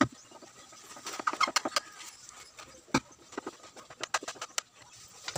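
Hand screwdriver driving screws through a horn tweeter's plastic flange into a plywood speaker box: irregular clicks and scrapes, with a sharp knock at the start and another about three seconds in.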